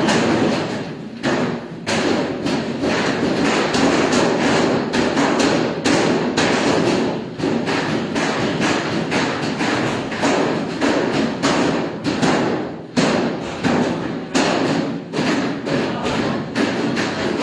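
Dough for hand-pulled noodles being kneaded and slapped on stainless-steel worktables: a run of irregular dull thumps, one to several a second, over a steady background din.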